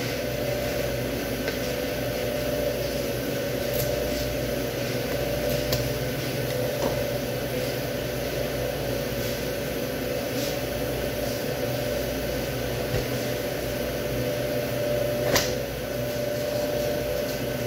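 Steady machine hum with a constant tone, with a few faint clicks as raw beef ribs are handled, the clearest near the end.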